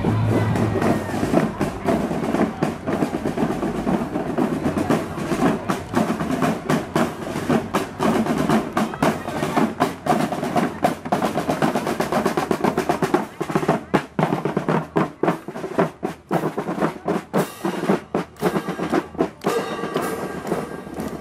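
Marching drum corps playing a snare-drum cadence, with fast strikes and rolls and bass drum underneath.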